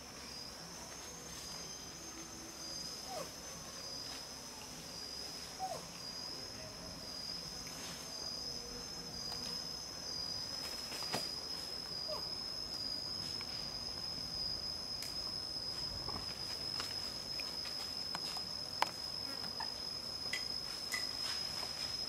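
Steady, high-pitched insect drone of forest crickets or cicadas, with a few faint short chirps and light clicks scattered through it.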